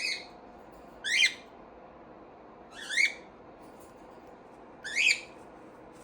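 A pet bird calling four times, short calls rising in pitch, about one every one to two seconds.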